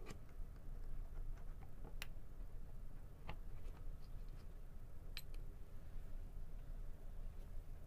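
Handheld digital stopwatch buttons pressed and handled: several sharp clicks a second or two apart, over a steady low hum.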